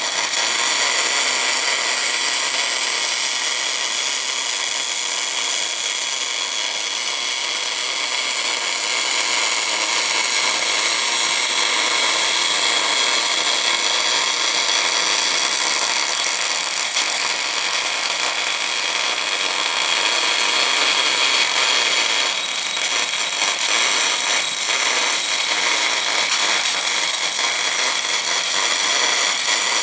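Continuous wire-fed MIG/MAG welding arc laying a weld on cast iron: a steady hiss that dips briefly about two-thirds of the way through.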